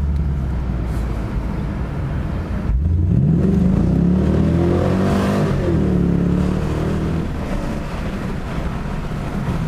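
Holden SS Commodore's 6.0-litre V8, running on freshly fitted lifters, pulls hard under acceleration from about three seconds in, its note rising in pitch and then levelling off. Around five seconds in there is a brief hiss of the bald rear tyres skidding.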